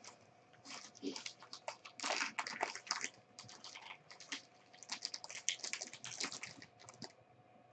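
Thin black plastic bag crinkling and crackling in the hands as it is unwrapped, a quiet, irregular run of crisp crackles that comes in two busier spells.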